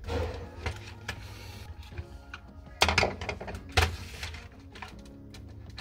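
Sharp clicks and light scraping of a small tool working inside a plastic instrument cluster to pry a connector loose; the two loudest clicks come about three and four seconds in. Quiet background music plays underneath.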